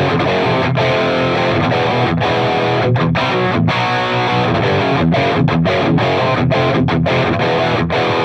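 Solar V1.6C electric guitar with an EverTune bridge played through heavy distortion: a riff of chords that are cut off short again and again, in a stop-start metal style.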